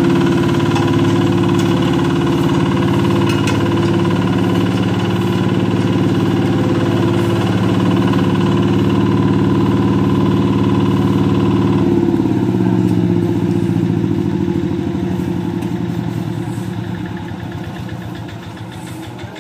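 Small walk-behind double-drum road roller compacting fresh asphalt, its engine running steadily. About twelve seconds in the sound drops, then fades as the roller moves off up the road.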